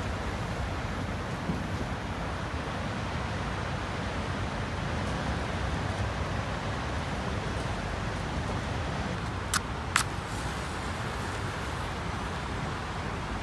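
Steady outdoor rushing noise, with two sharp clicks in quick succession about ten seconds in.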